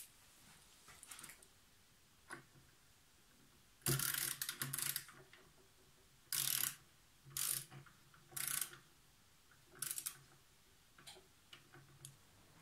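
Socket ratchet wrench clicking in five short bursts of rapid ticks about a second apart, the first the longest, as it is swung back and forth to tighten the screws of a supported linear rail.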